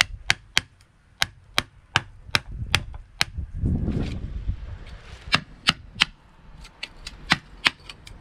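A wooden baton knocking on a blade driven into a birch log, batoning it along to split the log: a quick run of sharp wooden knocks, about three a second, then a lower crunching noise about four seconds in, then more knocks trailing off into lighter taps.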